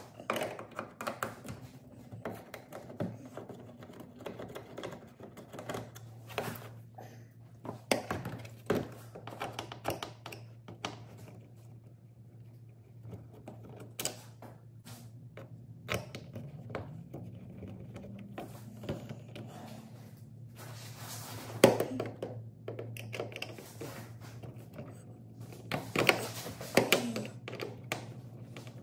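Flathead screwdriver prying plastic clips off a Volkswagen Golf R's plastic underbody cover: scattered clicks, taps and plastic knocks, the sharpest about two-thirds of the way through and a cluster near the end. A low steady hum comes in after a few seconds.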